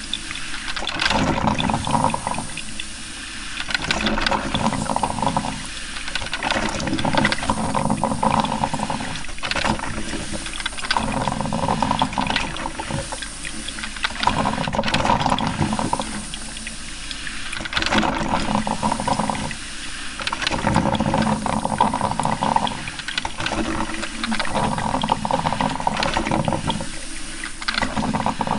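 Coffee maker brewing: gurgling, sputtering water coming in surges of a few seconds each, with short lulls between.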